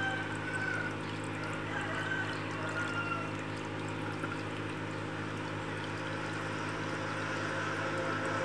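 Water pouring and trickling steadily into an aquarium tank, over a steady low hum.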